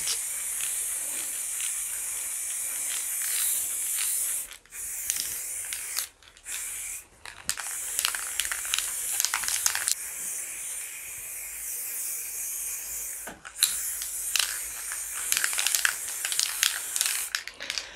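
Aerosol can of chalk-effect spray paint hissing steadily as it is sprayed. The nozzle is released for a few short breaks partway through.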